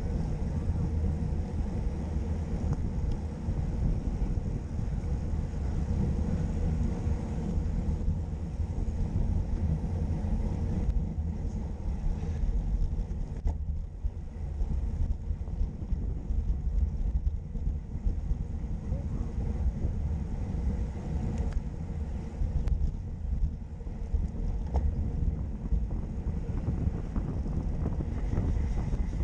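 Wind buffeting the microphone of a GoPro action camera on a moving road bicycle: a steady, unbroken low rumble.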